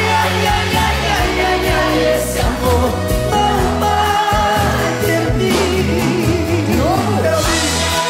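Sertanejo band playing live: accordion, acoustic guitars, electric bass and drums, with voices singing over them.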